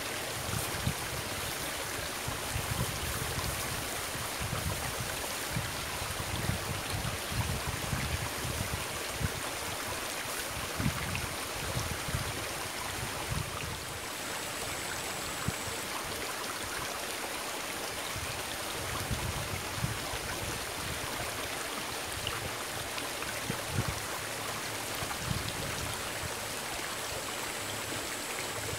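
Shallow rocky stream running steadily, an even rush of water with irregular low rumbles underneath.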